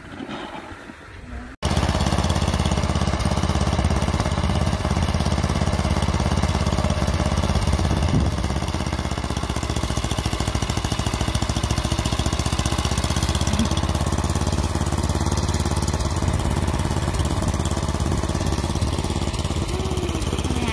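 Snow blower's engine running steadily at a constant speed, starting abruptly about a second and a half in.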